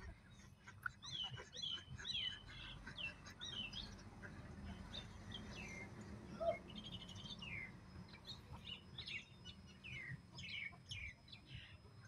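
Small birds chirping: many short, high, falling chirps in quick runs, with a single lower call about six and a half seconds in.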